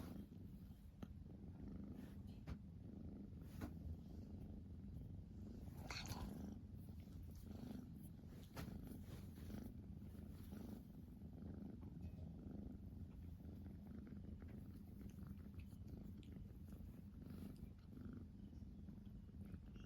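Siamese cat purring steadily at close range, with a few brief faint clicks and rustles over the purr.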